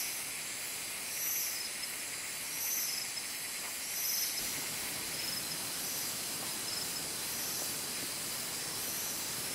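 Rainforest night insects: a steady high-pitched trill over a constant hiss, with a lower buzzing call that swells about every second and a half and dies away about halfway through.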